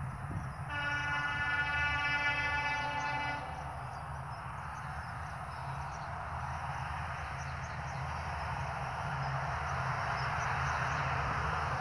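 Indian Railways locomotive horn sounding one long blast of about three seconds, followed by the steady rumble of an approaching train that slowly grows louder.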